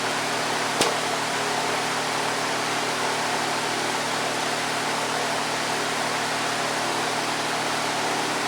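Electric fan running steadily, an even rushing hiss over a low hum, with a single sharp click about a second in.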